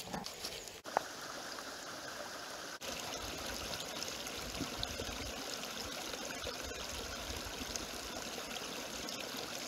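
Small forest stream running steadily, a continuous trickling flow of water.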